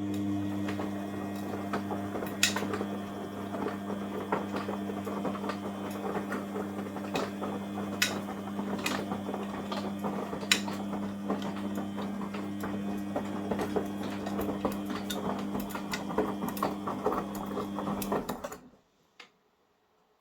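Front-loading washing machine running with its covers off: a steady motor hum with a dense stream of small clicks and rattles, cutting off suddenly about 18 seconds in.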